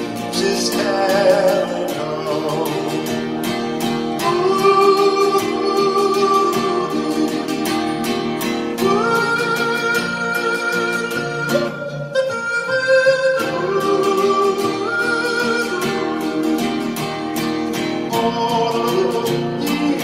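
Acoustic guitar strummed steadily under a man's wordless, yodel-like singing in long held notes with vibrato.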